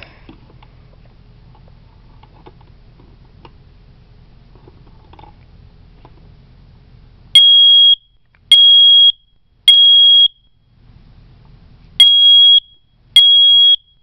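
Smoke alarm sounding its test alarm with the test button held: after about seven seconds of faint room hum, loud high-pitched beeps come in the three-beep pattern, one full group of three, a pause, then two more beeps near the end.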